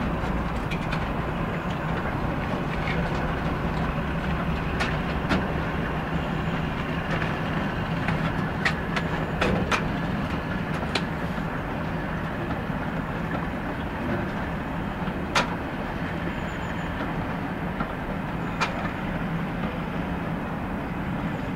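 Heritage diesel train running steadily: a continuous low engine and rail drone, with a few sharp isolated clicks scattered through it.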